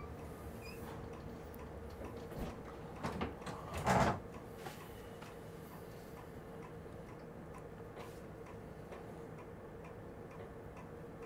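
Faint regular ticking over a steady hum, with a short louder burst of noise about three to four seconds in.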